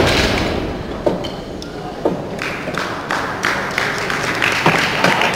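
A loaded barbell with bumper plates crashes onto the lifting platform at the very start, fading quickly. Then an audience in a large hall applauds and calls out, with the clapping thickest in the second half.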